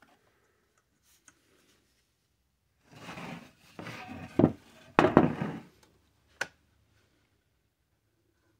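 Plastic model parts handled and set down on a plywood board: rubbing and scraping, with a few sharp knocks and a short click about six seconds in.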